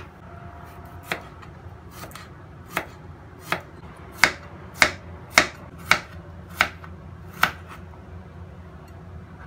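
Kitchen knife slicing cucumbers on a plastic cutting board: about a dozen sharp knocks roughly half a second apart, loudest in the middle of the run.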